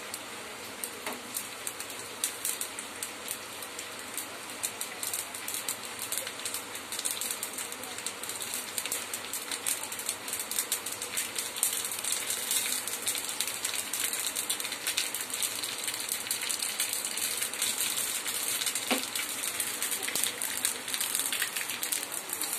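Mustard seeds and urad dal spluttering in hot oil in a small pan for a tempering. Rapid, irregular crackling pops over a steady sizzle, sparse at first and much busier after about six seconds.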